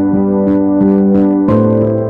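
Background music: keyboard notes moving over held chords, with a new chord struck about one and a half seconds in.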